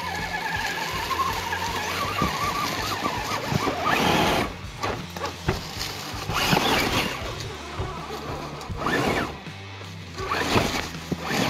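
Electric motor and drivetrain whine of an Axial Bronco RC rock crawler climbing, rising and falling with the throttle, with its tyres scrabbling over rocks and dry leaves several times.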